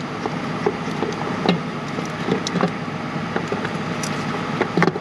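Scattered light metal clicks and knocks as a replacement starter motor is slid and worked into place against the engine, over a steady background hiss.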